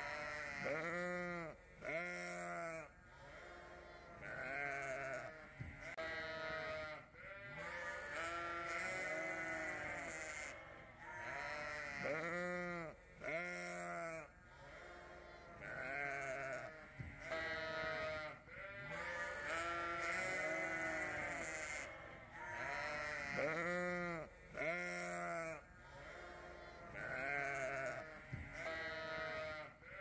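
A flock of sheep bleating, many calls of different pitches overlapping one after another with hardly a pause.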